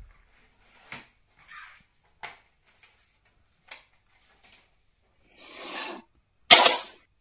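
A plastic DVD case being handled: a string of soft clicks and rustles, then a scraping slide lasting about half a second, and a loud sharp snap near the end.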